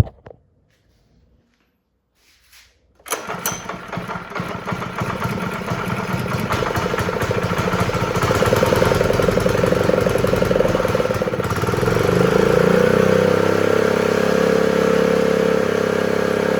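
Honda GX120 single-cylinder four-stroke engine starting about three seconds in, after a near-silent gap, then running steadily. About two-thirds of the way through, its speed rises and holds higher. It starts now that the faulty low-oil sensor wire has been unplugged.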